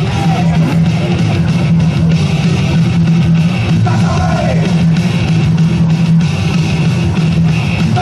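Loud rock music with electric guitar and a steady beat.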